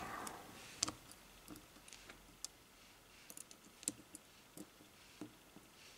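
Faint, scattered light clicks and taps as steel tweezers nudge and set small brass lock pins upright in a plastic pin tray, about a dozen ticks at uneven intervals.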